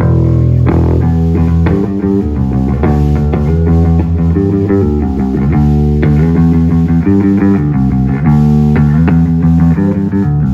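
Electric bass guitar played solo through the PA for a sound check, a run of plucked notes changing pitch.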